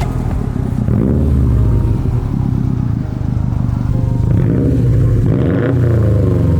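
2016 Subaru WRX STI's turbocharged 2.5-litre flat-four engine running at low speed, its pitch rising and falling a little as it is driven.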